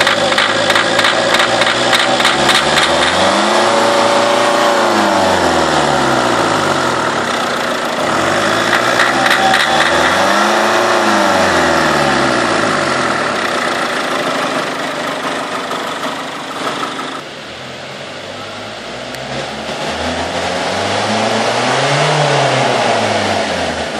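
Small diesel engine running with a knock, its speed rising and falling three times. Revs peak about four seconds in, about ten seconds in, and near the end.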